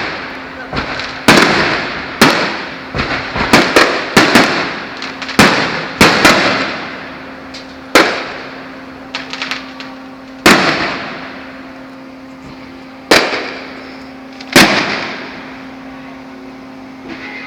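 Fireworks display: a run of loud bangs at irregular intervals, each trailing off in a rolling echo, coming thick and fast at first and more spaced out in the second half, over a steady low hum.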